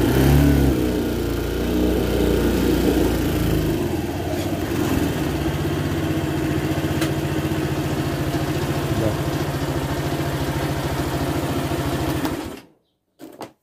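A 250cc Lida ATV's engine running, under varying throttle for the first few seconds, then idling steadily with an even pulse. The sound stops abruptly about twelve and a half seconds in.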